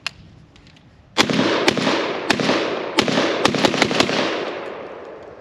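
Benelli M4 semi-automatic 12-gauge shotgun fired rapidly, a quick string of loud shots starting about a second in, each shot echoing and the echo fading away after the last one. A single light click comes just before.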